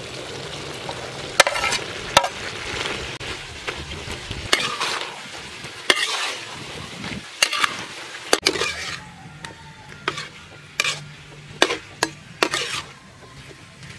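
Pig liver and bell peppers sizzling in a steel wok while a metal spatula stir-fries them, scraping and clanking against the wok about a dozen times at irregular intervals.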